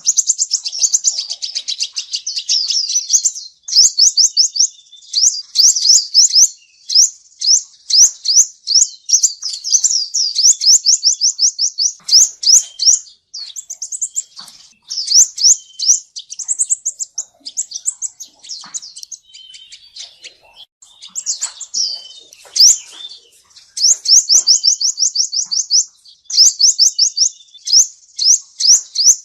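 Male sunbird singing: fast, high trills of quick down-slurred notes repeated in runs of a few seconds, broken by looser twittering calls about halfway through.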